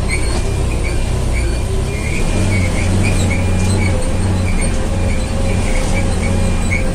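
Heavy truck engine running steadily under way, heard from inside a vehicle cab: a low, even drone.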